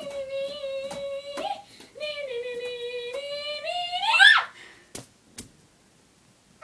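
A high voice holds long wavering notes with short breaks, then slides sharply up into a loud squeal about four seconds in and breaks off. Two sharp clicks follow.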